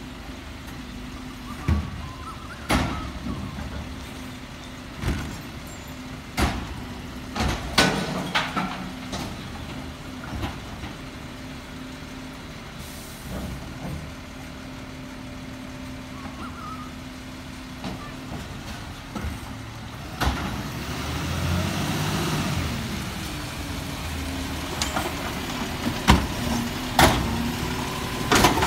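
Side-loader garbage truck idling while its automatic arm lifts and tips recycling wheelie bins, with repeated sharp bangs as bins are shaken out and knocked against the hopper. About twenty seconds in there are a few seconds of hissing and rising engine noise as the truck pulls forward, then more bangs from the arm near the end.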